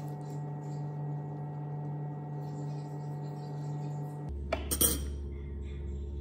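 A short clatter of dishware on a plate, the loudest sound, about four and a half seconds in, among faint handling sounds of food being pulled apart by hand. Under it runs a steady hum that drops abruptly to a lower pitch just before the clatter.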